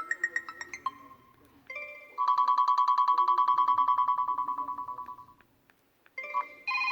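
Ringtone previews playing one after another from an Orbic Journey V phone's speaker. A plucked-note melody cuts off about a second in, then a fast-pulsing electronic tone rings for about three seconds and fades out, and another ringtone starts near the end.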